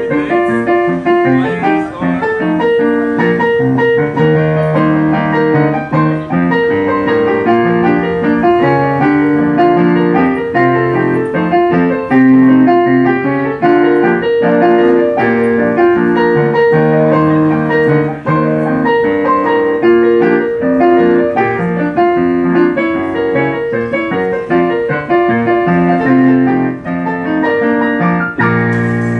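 Ragtime piano music: a solo piano playing a busy run of quick notes.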